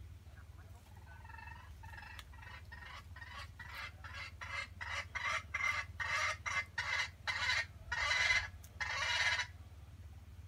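A chicken clucking in a long run of short calls, about three to four a second, that starts faint and grows louder. It ends in two longer, louder calls near the end.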